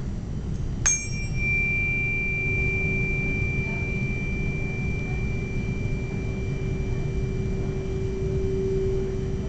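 A 384 Hz tuning fork struck about a second in, with a sharp metallic tick and a high ringing overtone that fades, then a steady pure hum held over the mouth of a resonance tube. The hum swells louder near the end as the water level brings the air column in the tube to resonance.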